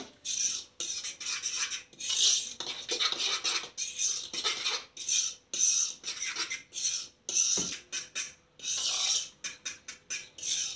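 A spoon stirring dry flour mix in a bowl, scraping against the bowl in a run of irregular strokes, one or two a second.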